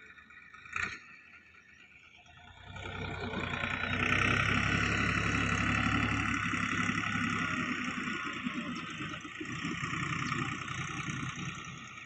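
Bull Power farm tractor's diesel engine working under load as it pulls a tine cultivator through dry soil. It grows louder from about two and a half seconds in as the tractor comes close, then eases slightly towards the end. A single sharp click comes about a second in.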